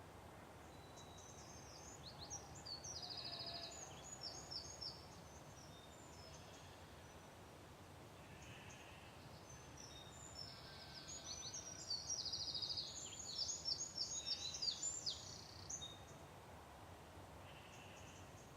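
A songbird sings two long phrases of rapid high chirps and trills, the second one louder, over a faint steady background hiss.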